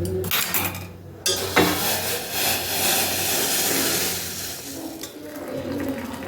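Hot betel-leaf decoction being poured from a pan through a metal strainer into bowls: a steady splashing pour lasting a few seconds that slowly fades, with sharp metal utensil clinks near the start.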